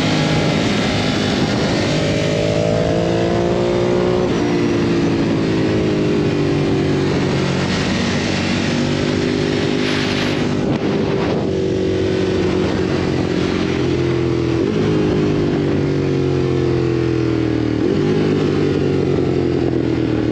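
Ducati Monster 1200S's 1198 cc L-twin engine on track, revs climbing and falling with several gear changes, under steady wind and road rush. A brief louder rush comes about ten seconds in.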